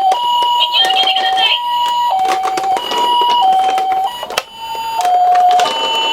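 Toy ambulance minicar's electronic siren sounding the Japanese two-tone ambulance call, a repeating high–low "pee-poh" with each note lasting about two-thirds of a second, under scattered light clicks.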